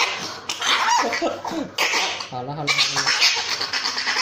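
Chihuahua in a cone giving a run of harsh, raspy cries, one after another, as it is held for an injection.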